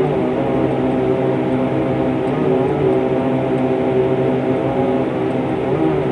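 Propeller airplane's engines running steadily, a loud, even pitched hum with many overtones.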